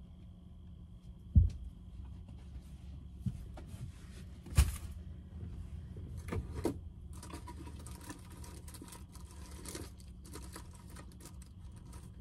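Someone handling clothes and gear inside a small camper van: a few sharp knocks and thumps, then a stretch of rustling fabric, over a steady low hum.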